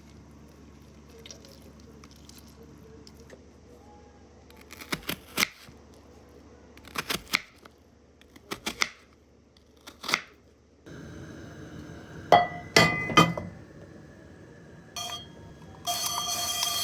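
Glass and dishes clinking and knocking as kitchen items are handled and set down, a few separate clinks, then a cluster of louder ones over a steady hiss. Steady tones come in near the end.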